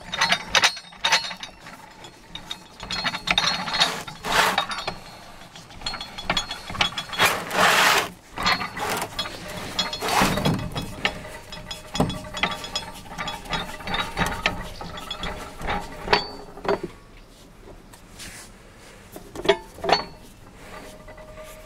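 Sealey MC5905 motorcycle scissor jack being wound down with a spanner on its screw: a run of irregular metallic clicks and rattles from the spanner, screw and scissor arms as the jack lowers. The clicks ease off in the later part, with a few sharp ones near the end as it closes.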